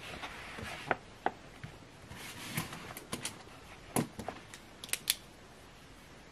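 Paper rustling as textbook pages are turned and pressed flat, with a scatter of light clicks and taps as a pen is picked up from among other pens and handled on the desk.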